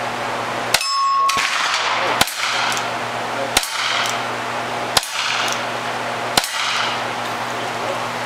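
Five revolver shots fired one at a time at a slow, even pace, about a second and a half apart, each followed by a ringing clang, typical of a bullet striking a steel target.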